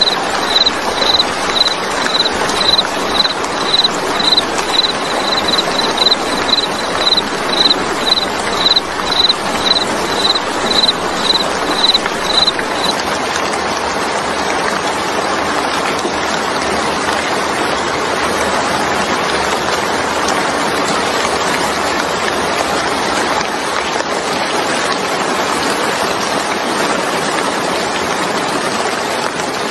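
Steady heavy rain falling on a wet surface, an even hiss of many drops. Until about 13 s in, a short high chirp repeats about twice a second over the rain, then stops.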